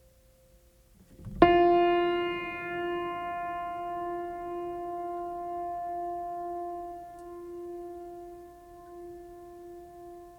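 A single deep, bell-like musical note struck once about a second and a half in, then ringing on with many overtones, its low tone wavering slowly as it gradually fades.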